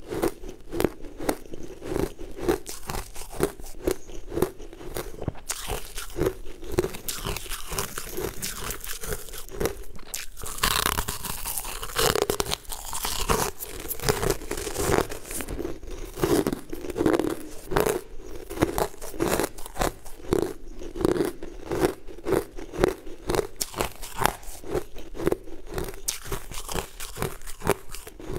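Close-up crunching and chewing of frost-covered frozen chunks, with many sharp crunches in quick, uneven succession. About ten seconds in, a longer hissing scrape runs for a few seconds while a hand digs into the frosty tub.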